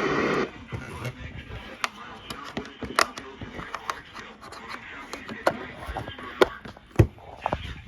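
Radio reception noise: a steady hiss cuts off about half a second in, followed by irregular sharp crackles and pops of static.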